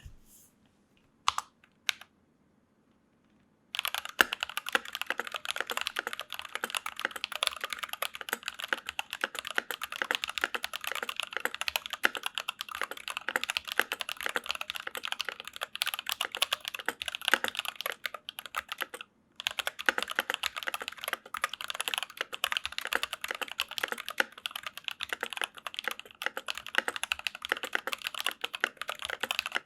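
Fast typing on a stock NovelKeys NK65 Milkshake Edition mechanical keyboard with Silk Milkshake switches, an aluminium plate, Milkshake keycaps and factory-lubed plate-mount stabilizers, which the owner finds still noisy. Two lone key clicks come first, then steady rapid typing starts about four seconds in, pauses briefly near the middle, and resumes.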